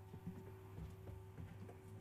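Quiet hall ambience: a steady low electrical hum with faint scattered knocks and shuffles. The last of a bell's ringing dies away just at the start.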